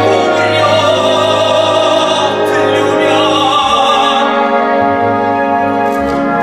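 Operetta singing: a classically trained voice with wide vibrato over instrumental accompaniment. The voice fades about four seconds in while the accompaniment holds its notes.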